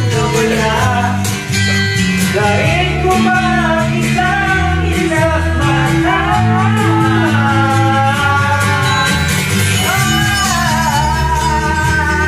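A man singing karaoke into a microphone over a backing track, with guitar and a steady bass line under his gliding, held notes.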